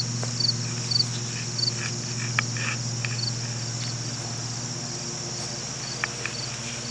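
Crickets chirping in a field at dusk: short high chirps repeating at an even pace over a steady high insect drone, with a steady low hum underneath and a few faint clicks.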